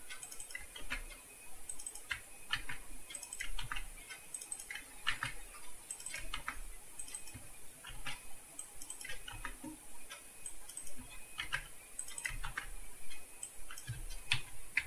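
Computer keyboard keys and mouse buttons clicking, scattered and irregular, a few clicks a second, some in quick pairs.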